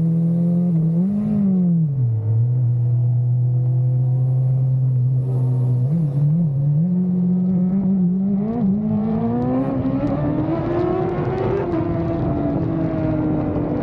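Superbike engine running at a steady cruise, with a quick blip of revs about a second in, then revs climbing from about eight seconds as it accelerates and easing off near the end. A rushing noise builds along with the rise in speed.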